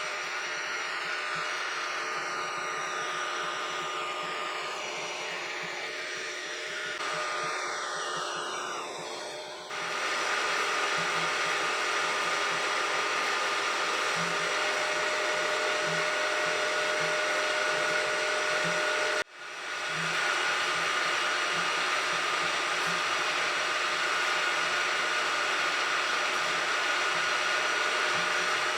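Milling machine running steadily with a fixed whine, engraving graduation lines for a vernier scale. It gets louder about ten seconds in and cuts out for an instant just past the middle.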